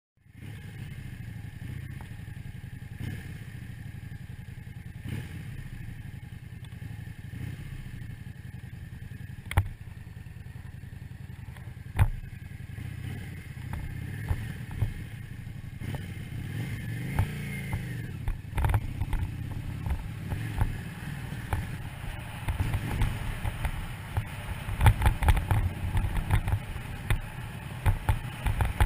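Yamaha Drag Star 650's air-cooled V-twin engine running steadily while the motorcycle is ridden, heard from on board. There are two sharp knocks about ten and twelve seconds in, and louder, bumpier noise with thumps in the last several seconds.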